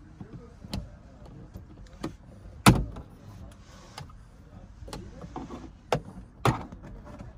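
Plastic trim clips of a 2022 Cadillac Escalade's overhead dome-light console clicking and snapping as the panel is pried loose with a flathead screwdriver. About seven sharp clicks come at uneven intervals, the loudest a little under three seconds in.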